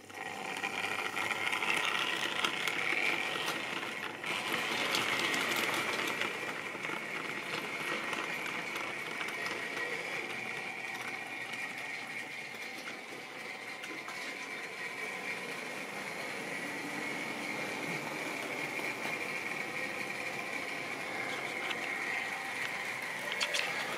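OO gauge model train running on the layout's track: the locomotive's electric motor whines steadily while the wheels rattle over the rails. It starts suddenly and is loudest in the first few seconds.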